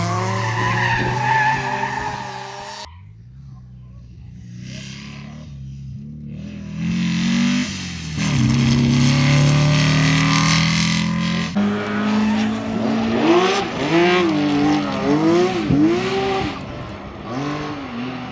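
Rally car engines revving hard in a run of short clips, the pitch climbing and dropping with each gear change and throttle lift, very rapid up-and-down in the second half, with tyre noise on the stage surface.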